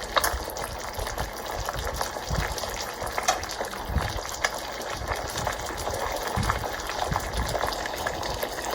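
Chicken curry cooking in a pot, bubbling steadily with small pops and crackles.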